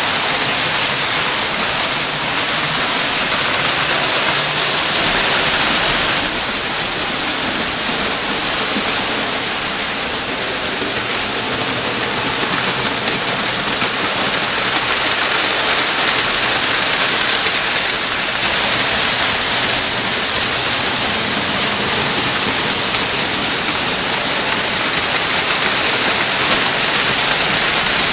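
O scale toy trains running on three-rail track: a steady rushing noise of wheels and motors, shifting slightly about six and eighteen seconds in.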